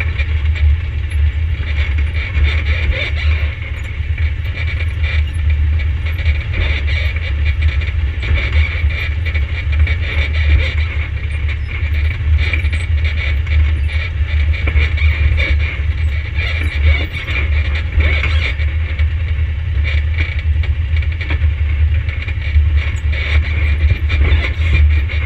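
An ATV engine running steadily, with a constant low drone.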